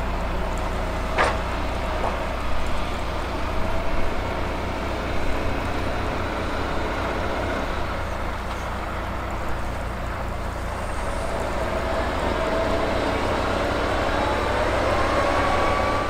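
Heavy diesel snow-clearing machine running steadily with a deep rumble. A single sharp knock comes about a second in, and near the end a whine rises in pitch.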